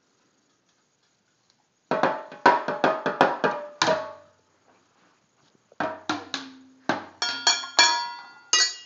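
A toy drum set with a toy cymbal, beaten unevenly with drumsticks by a toddler: after about two seconds of quiet, a quick run of about ten hits, a short pause, then another uneven run of hits near the end, each leaving a brief metallic ring.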